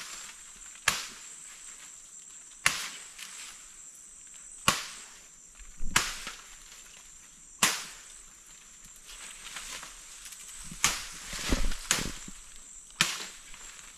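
A machete chopping into a palm trunk, a sharp strike every second or two with a quick run of blows near the end. A steady high insect whine runs underneath.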